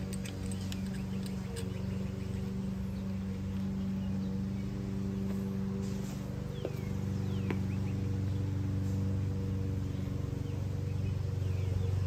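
A steady low hum made of several held pitches, with a few light clicks in the first couple of seconds and a few short bird-like chirps in the second half.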